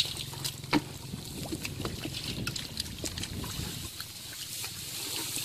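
Wet mud and shallow muddy water being worked by hands and feet: squelching and sloshing, with scattered short splats, two of them louder near the start.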